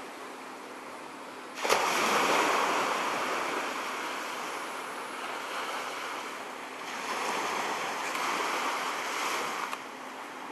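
Small waves washing onto a sandy beach: a steady rush of surf that jumps up suddenly about two seconds in, then swells and eases.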